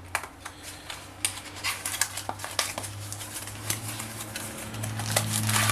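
Irregular clicks and crackles of packaging being handled as a pair of earphones is taken out, over a steady low electrical hum.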